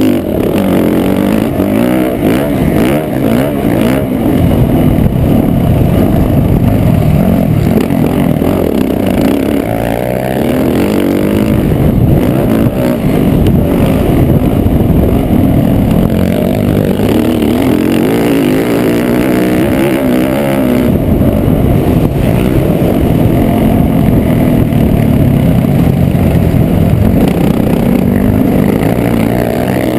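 2012 Yamaha YZ450F's single-cylinder four-stroke engine, heard onboard while riding a motocross track, revving up and dropping back again and again as it accelerates, shifts and rolls off for turns and jumps.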